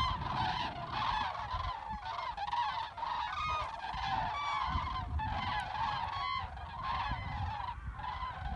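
A large flock of common cranes calling in flight overhead: a dense, unbroken chorus of many overlapping calls, over a low rumble.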